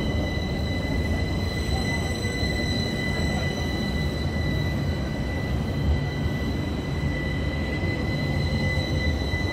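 Articulated modern trams rolling past on grassed track, making a steady low rumble of wheels and running gear. A steady high whine runs over the rumble.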